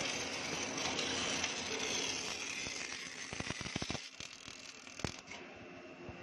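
MAG welding arc crackling steadily as an automatic welder lays a seam joining a spiral steel flight to its shaft. About three seconds in, the crackle thins out into scattered sharp pops and clicks and grows quieter.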